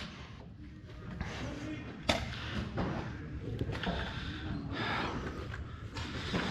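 One sharp snap or knock about two seconds in, over faint distant voices and low shuffling.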